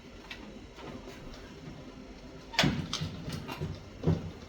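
Hands working a snowblower's control cable and its fittings: scattered light clicks and knocks, with one sharper knock about halfway through and a few lighter taps after it.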